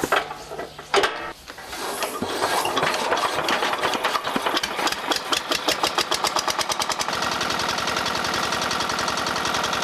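A small engine starts up and runs, its putter quickening over a few seconds and then settling into a fast, steady beat.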